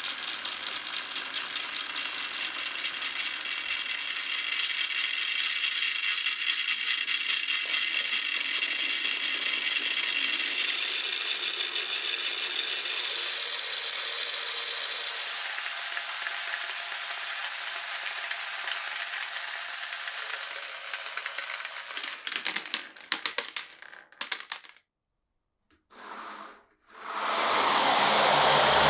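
Many marbles rolling and clattering along a marble run, a dense continuous rattle of small clicks that thins to a few scattered clicks about 22 seconds in and stops. Near the end a steady rushing noise fades in.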